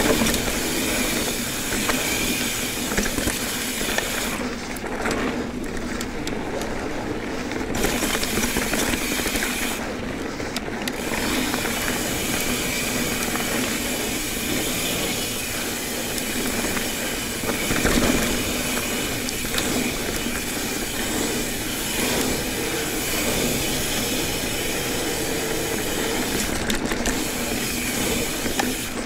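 Mountain bike (an Ibis Ripley 29er) riding over a rough dirt trail: steady tyre roar, chain and frame rattle, and wind noise. The hiss thins out briefly twice in the first ten seconds or so.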